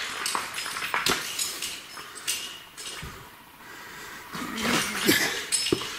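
Footsteps on loose broken rock, with stones shifting and clinking against each other in irregular knocks; a short lull a little past halfway before the clatter picks up again.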